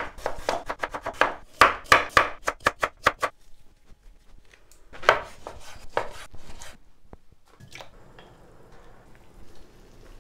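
Kitchen knife chopping on a wooden cutting board: a quick run of sharp strokes for about three seconds, then a few slower cuts through raw chicken. Near the end there is a faint steady hiss from the hotpot simmering.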